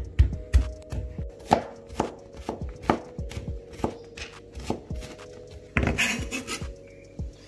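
Garlic cloves on a plastic cutting board, crushed with a couple of heavy mallet blows and then chopped with a chef's knife in a run of sharp knocks, about two a second. About six seconds in comes a short scrape as the chopped garlic is swept together on the board.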